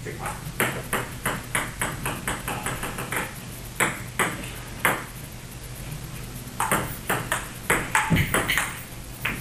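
Plastic table tennis ball clicking off rackets and table: a quick, fairly even run of hits for about three seconds, a few single hits, a short pause, then another burst of hits near the end.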